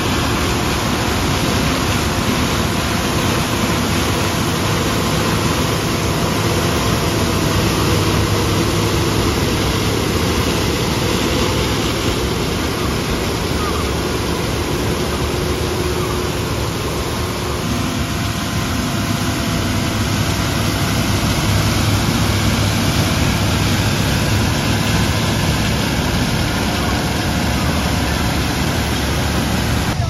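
Self-propelled corn harvester running under load as its header cuts and picks standing corn: a dense, steady engine and machinery din with a steady whine through it. The machine's note shifts about eighteen seconds in.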